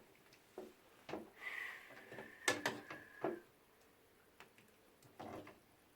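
Tableware being handled while food is served: a scattered run of light knocks and clicks, with a faint high tone in the middle.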